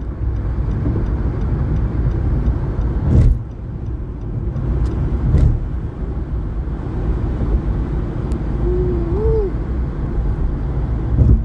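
Road noise inside a moving car at highway speed: a steady low rumble of tyres and engine, with a few louder thumps about three and five seconds in and again near the end.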